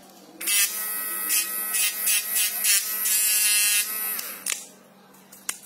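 Mini rotary grinder's small electric motor switched on and running at speed with a high, steady whine for about three and a half seconds, then switched off and winding down with a falling pitch.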